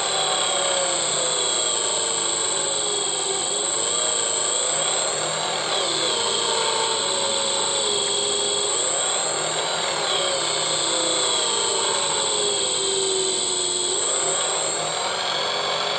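Turnigy Aerodrive SK3 brushless outrunner motor, run from an electronic speed controller, whining as it turns the mini lathe spindle. Its pitch sags as the spindle is loaded by hand and climbs back when the load eases, three times over, with a steady high-pitched whine alongside.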